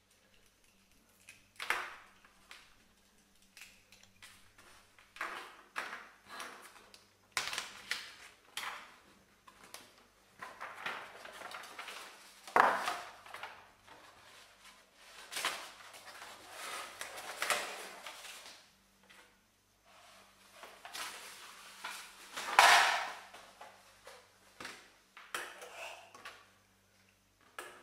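Small plastic Playmobil figures and a toy sword handled and set down on a desk: irregular clicks, taps and light clatter mixed with stretches of rustling. The loudest knocks come about halfway through and again late on.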